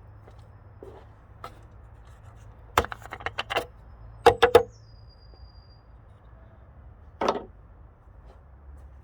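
Sharp clicks and knocks of hard objects being handled: a quick run of clicks about three seconds in, three louder knocks a second later followed by a brief high squeak, and one more knock near the end.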